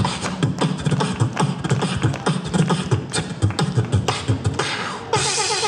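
Beatboxing into a handheld microphone: fast, rhythmic kick-drum and snare sounds made with the mouth. About five seconds in, the beatboxing gives way to recorded music.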